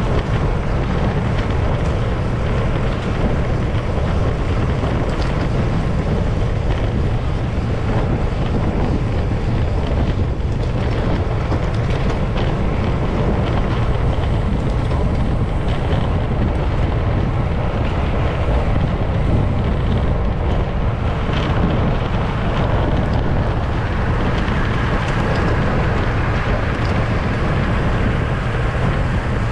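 Wind rushing over the microphone of a camera on a moving bicycle: a loud, steady low rumble with a few faint ticks on top.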